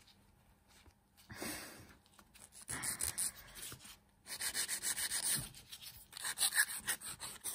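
Hand nail file rubbing across extra-long stiletto nail tips to take off rough edges. A few slower strokes come first, then quick back-and-forth strokes from about four seconds in.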